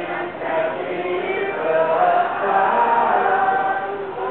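Many voices singing together in long held notes, like a choir or a crowd singing along.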